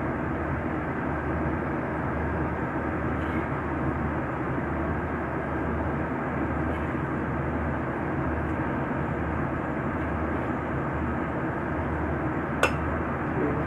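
Steady hiss of a pan of tuna frying in its own released oil over a low gas flame, with one sharp click near the end.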